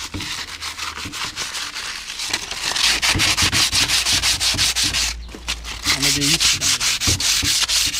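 Sandpaper rubbed by hand in quick back-and-forth strokes over the steel tubes of a 1986 Kawasaki KX125 motocross frame, taking off rust and old paint so the primer will grip. The scratching grows louder about three seconds in and stops briefly about five seconds in.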